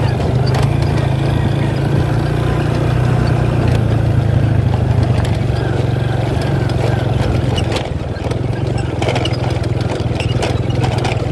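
A small engine running steadily, a low even rumble, with a few knocks and rattles near the end.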